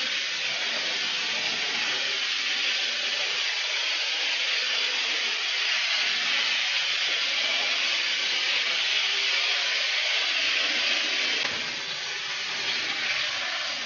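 Chicken breasts sizzling in hot cooking oil in a frying pan, a steady hiss that eases a little near the end.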